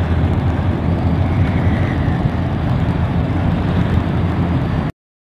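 Steady low rumble of a car on the move, heard from inside the cabin: engine and tyre noise on the road. It cuts off suddenly to dead silence near the end.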